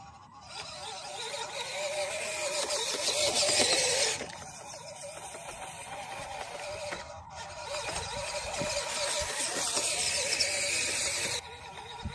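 Small electric motor and gearbox of a 1:12 MN-90 RC Land Rover whining as it crawls over rough dirt, the pitch wavering with the throttle. A hiss over it drops off sharply about four seconds in and again near the end.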